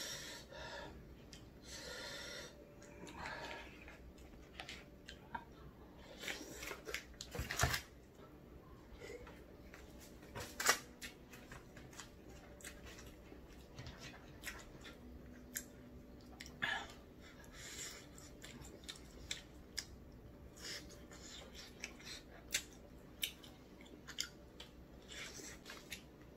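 Close-up eating sounds: chewing of tteokbokki rice cakes, with irregular clicks and scrapes of wooden chopsticks and a wooden spoon in a plastic tray.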